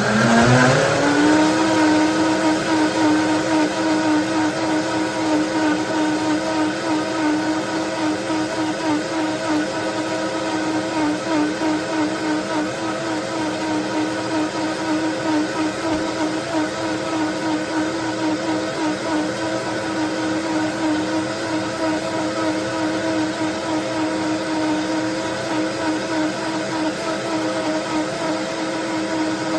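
Vitamix blender motor rising in speed over the first second or so, then running steadily at high speed on its shake setting, blending a banana and protein-powder shake.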